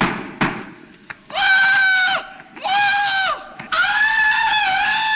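A man giving a Tarzan-style jungle yell: a high, yodelling call in three long stretches with sudden breaks in pitch, starting about a second in. It is preceded by two sharp knocks at the very start.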